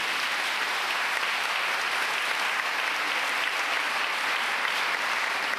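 Audience applauding: many people clapping at a steady, even level.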